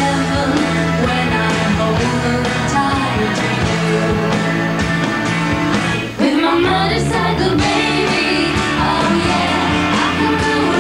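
Rock band playing live: electric bass, guitar and drums under a woman's lead vocal. About six seconds in the music drops out for a moment and comes back in with a hit and rising glides.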